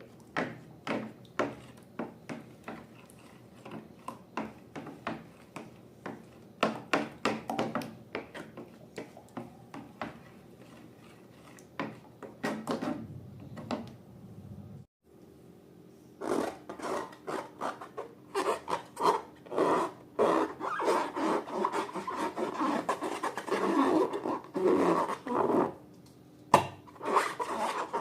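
Hands working with balloons and slime: irregular taps and rubbing, scraping sounds. They stop briefly about halfway, then come back denser and louder.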